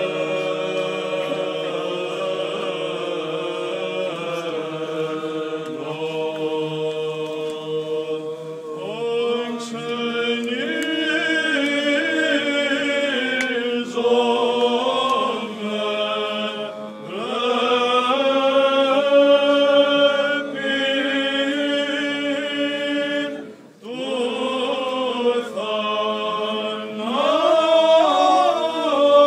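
Byzantine chant sung by a few male chanters of an Orthodox Holy Friday service. A long note is held for the first several seconds, then a moving melody with glides between notes sets in from about nine seconds in, broken by a brief pause for breath near the end.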